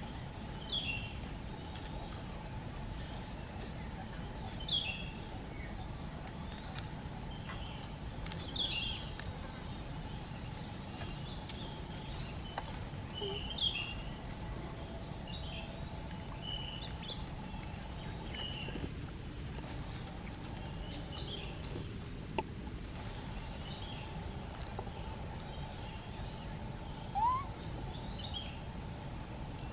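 Outdoor ambience: a steady low rumble with small birds chirping on and off in the background, and one short rising squeak near the end.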